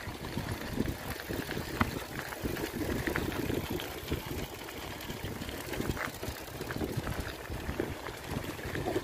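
Mountain bike tyres rolling over a loose gravel road: a steady crunching rumble with scattered small clicks of stones, and wind buffeting the microphone.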